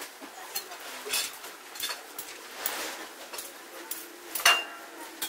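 Spoons and forks clinking against plates and dishes as several people eat, in scattered small clicks, with one louder, briefly ringing clink about four and a half seconds in.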